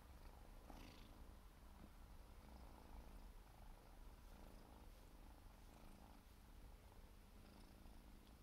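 Siberian kitten purring faintly, a low rumble that swells and eases with each breath, with a brief rustle about a second in.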